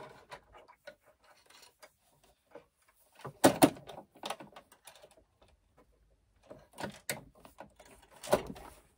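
Irregular clicks and knocks from changing the presser foot on a Brother sewing machine, the loudest cluster about three and a half seconds in. The machine is not stitching.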